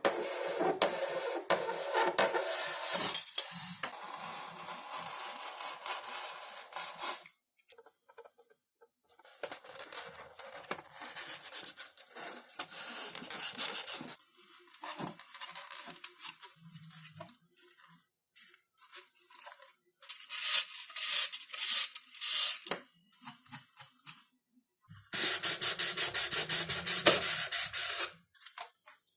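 Hand work on XPS foam sheets: a series of rubbing and scraping passes broken by short pauses. Near the end comes a run of fast, even strokes.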